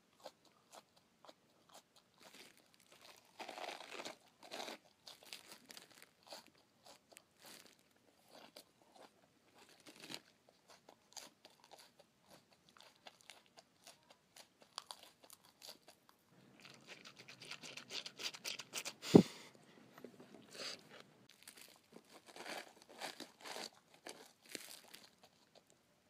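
A person chewing raw lettuce with the mouth open: irregular crunches and wet chewing, coming in clusters with short gaps between. About three-quarters of the way through there is one sharp thump, the loudest sound.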